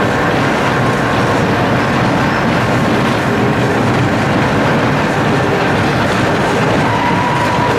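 Vintage tram in motion, heard from inside its wooden passenger car: steady running noise of steel wheels on the rails with the body rattling, and a thin wheel squeal near the end.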